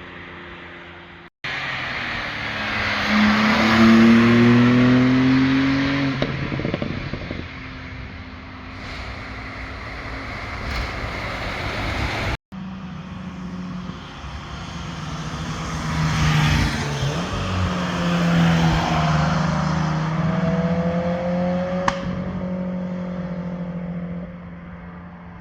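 Cars driving past under power, engines revving. In each of the two longer clips a car comes near, gets loud and passes, with its engine pitch bending down and up as it shifts and goes by. The sound cuts abruptly between clips.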